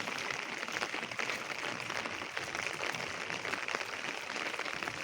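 Light rain falling steadily, a dense patter of many small drops with fine crackling ticks.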